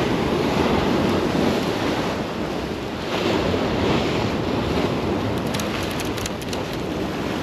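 Ocean surf breaking and washing over the rocks of a boulder shoreline, mixed with wind on the microphone; the surf swells up near the start and again about three seconds in. A few faint ticks come in the second half.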